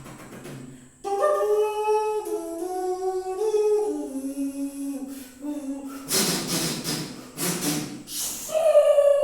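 A man's voice imitating music: a hummed melody moving down in steps from note to note, then a few short hissing puffs, and a higher held note near the end.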